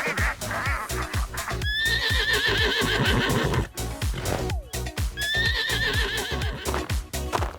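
A horse whinnying twice, each call about two seconds long with a shaking pitch, over background music with a steady beat.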